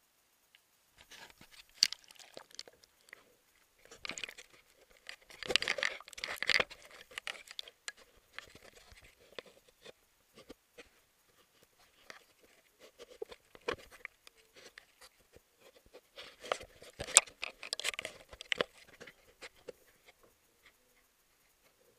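Handling noise on the camera itself: irregular rubbing, crackling and sharp knocks as it is gripped, turned and moved about, with two busier stretches of scraping about a quarter of the way in and again near three-quarters.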